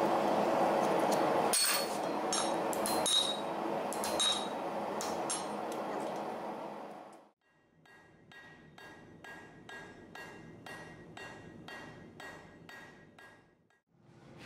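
Hammer striking steel on an anvil with ringing clinks. In the first half a few strikes stand over a loud steady noise. After a short pause comes a quieter run of evenly spaced taps, about two a second, each with a lingering metallic ring.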